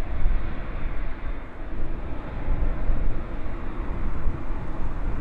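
Strong gusty wind buffeting the microphone, a loud uneven low rumble that rises and falls.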